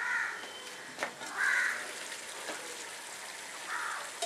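A crow cawing three times, evenly spread, over the faint steady sizzle of chicken cooking in a covered pot; a sharp click about a second in.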